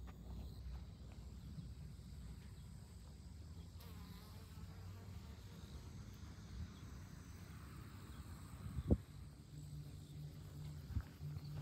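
A flying insect buzzing close by, a steady low hum that starts about three quarters of the way in, over a low background rumble. There is a brief knock shortly before the buzz begins.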